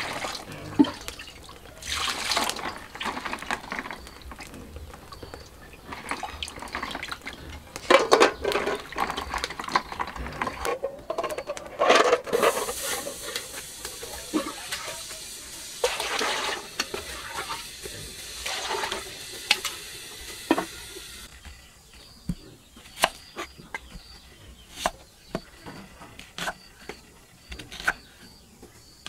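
Water poured from a dipper and splashing in a plastic bowl as eggs are washed by hand. For the last several seconds, a knife chops an onion on a wooden board in a run of sharp knocks.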